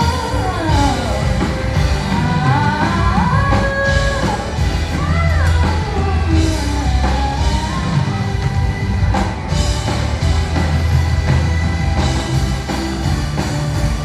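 A band playing with a singer: a sliding sung melody over drums and a heavy low end.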